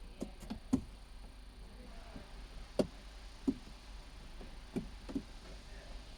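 A series of sharp knocks and clicks from hard objects, about seven in all, coming irregularly. The loudest are just under a second in and near three seconds. Typical of tools and plastic trim parts being handled while a car interior is taken apart.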